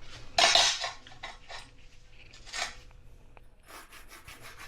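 Hand tools and a vinyl plank being handled while lines are marked out for a cut: a few short scrapes and light clinks, then a thin, high rubbing sound near the end, like a pencil or marker drawn along a straightedge.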